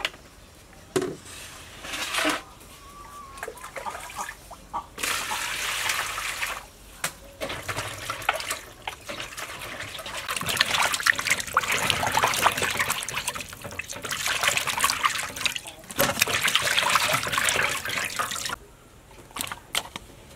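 Water poured from a plastic dipper into an aluminium basin, then hands sloshing and splashing raw pork offal in the water to wash it. The splashing stops near the end.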